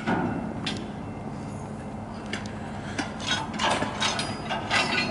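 Diesel freight locomotive idling with a steady low hum, overlaid by scattered metallic clicks and knocks, several of them close together about three and a half seconds in.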